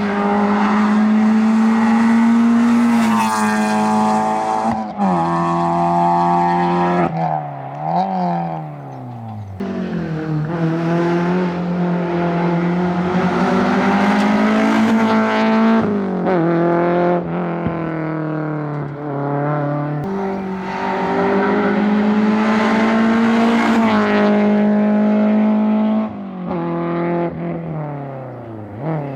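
Rally car engine running hard at high revs, its pitch holding high for seconds at a time, then falling sharply several times as the driver lifts off and shifts down, and climbing again under acceleration.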